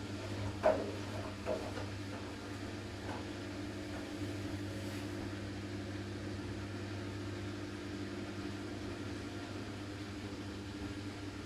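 Siemens iQ500 washing machine running its Delicates/Silk programme: a steady motor hum, with a brief sharp knock or splash under a second in and a smaller one about a second later.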